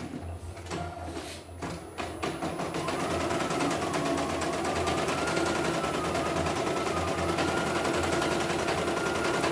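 CNY E900 portable computerised embroidery machine stitching a design: a fast, even clatter of needle strokes with a steady whine that wavers a little in pitch. The sound is quieter and uneven for the first two seconds or so, then settles into steady, louder stitching.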